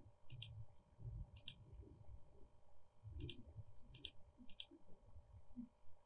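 Faint computer mouse clicks, five in all, each a quick press-and-release pair, over soft low thuds.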